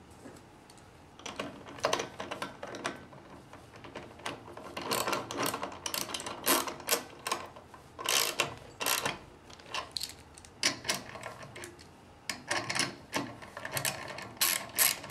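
Socket ratchet wrench clicking in short runs as the bolts of a busway housing coupler are tightened, with metal tool and part handling between the runs. The clicking starts about a second in.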